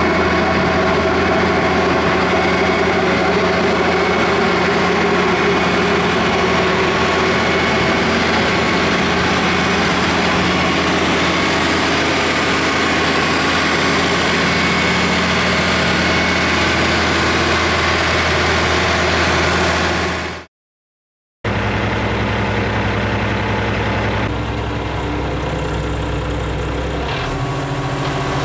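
Engine of a compact sidewalk rotary snow blower running steadily. About twenty seconds in the sound cuts out for a second, then the engine resumes with a changed tone.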